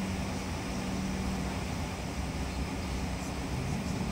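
Steady cabin noise of a Bombardier CRJ900 taxiing, its rear-mounted GE CF34 turbofans running at low taxi thrust. A low steady hum in the noise fades about a second in.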